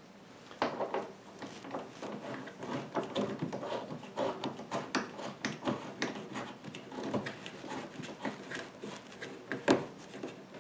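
Garden hose coupling being screwed onto a dehumidifier's threaded drain outlet: a string of irregular rubbing and clicking handling noises, with a sharper knock near the end.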